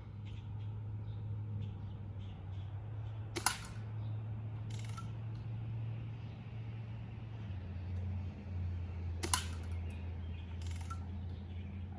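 Two BB gun shots about six seconds apart, each a sharp crack followed a second or so later by a fainter click, over a steady low hum.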